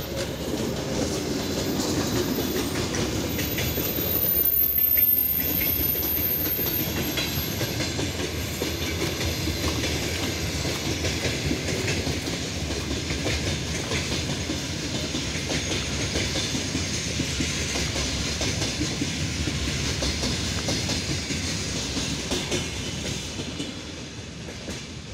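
A ChS4 electric locomotive hauling a passenger train passes close by, then its carriages roll past with a steady rumble and a rapid clatter of wheels on the rails. The sound is loudest a few seconds in and drops away near the end as the last cars go by.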